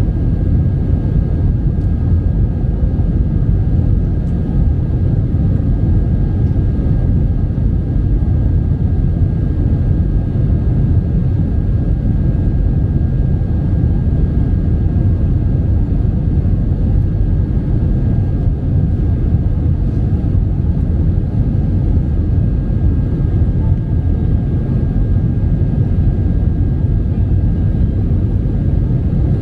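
Steady low drone inside the cabin of an Airbus A320 under power, with a faint steady whine above it and no change in level.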